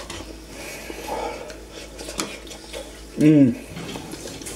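Cutlery clinking and scraping against dishes and a baking tray as food is served and eaten. A short, loud vocal sound comes about three seconds in.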